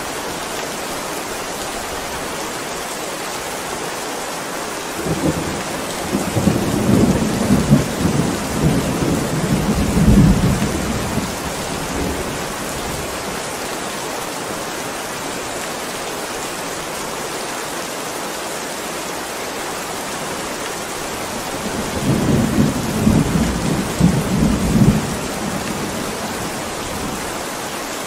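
Heavy rain falling steadily, with two long rumbles of thunder: one about five seconds in lasting several seconds, and a shorter one about twenty-two seconds in.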